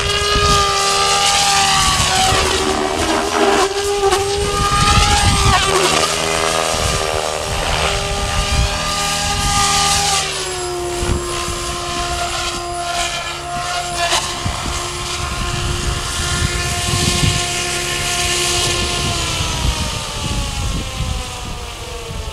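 SAB Goblin radio-controlled helicopter flying 3D aerobatics, its rotor and motor whine sweeping up and down in pitch through the manoeuvres. After about ten seconds the pitch steadies, and over the last few seconds it slides steadily downward as the rotor winds down after landing.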